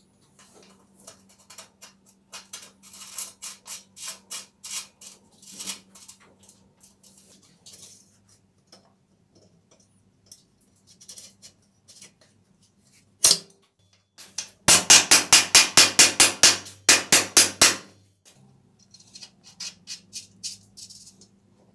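Metal clicking and clinking at a bicycle's bottom bracket as the bearing cup is threaded in and tightened with a hook spanner. There is one loud knock about thirteen seconds in, then a quick run of loud metallic knocks, about five a second, for some three seconds.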